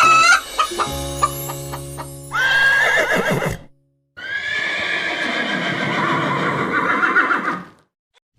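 A few sustained music notes, then a horse whinnying twice: a short wavering call about two seconds in, and after a brief silence a longer, wavering whinny.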